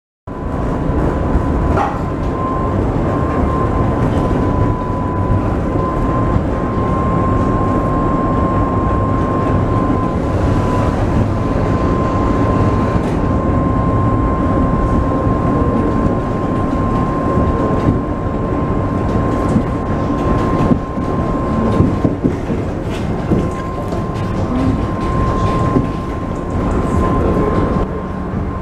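Tram running, heard from inside the passenger car: a steady rumble of wheels on the rails with a constant whine above it that wavers slightly in pitch, and a few light clicks.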